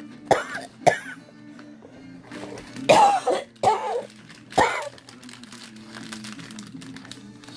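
Soft background music with low held notes, broken by five short throaty bursts; the loudest comes about three seconds in.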